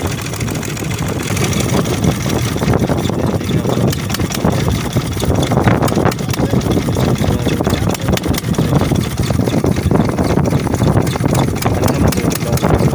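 Engine of a wooden fishing launch running steadily under way, with a fast even beat.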